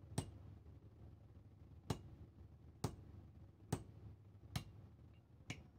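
Hammer striking a small iron piece held on the anvil: six sharp metallic blows about a second apart, each with a brief ring.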